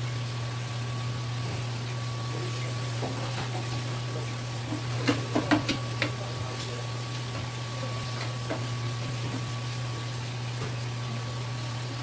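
A few quick, sharp knocks of a sashimi knife against a plastic cutting board about five seconds in as a slice of red sea bream is cut, over a steady low hum with a faint high tone.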